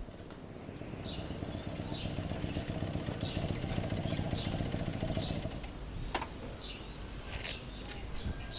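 A small engine running with a rough rumble that swells and then eases off after about six seconds, while birds chirp in short calls about once a second.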